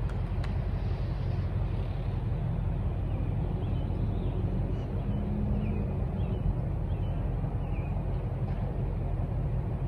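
Wind rumbling on the microphone, with a few short, faint high chirps from birds in the tree partway through. No woodpecker tapping or drumming is heard.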